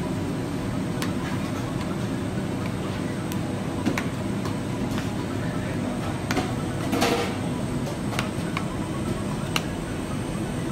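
Steady low mechanical rumble of bakery equipment, with scattered sharp clicks and taps from dough being cut with a scraper and pressed out by hand on a granite counter.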